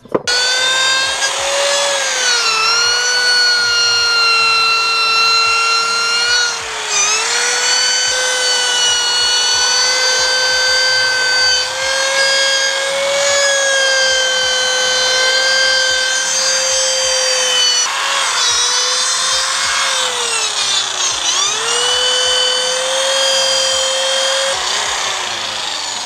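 Corded electric drill spinning a nylon scrub brush against a supercharger housing: a steady motor whine that dips in pitch a few times as the brush is pressed in and loads the motor.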